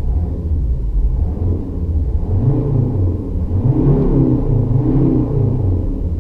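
Volvo C70 D5's five-cylinder turbodiesel with a stock exhaust, a deep rumble throughout. In the middle the revs rise and fall about three times in quick succession.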